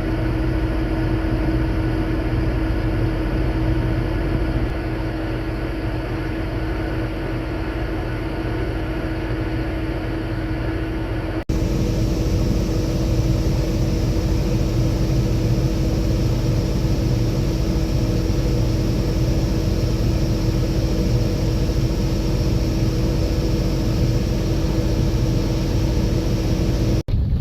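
Combine harvester running steadily at work, heard from inside the cab: a constant engine and threshing drone with a steady hum, unbroken except for two abrupt edit cuts, one about a third of the way in and one at the very end.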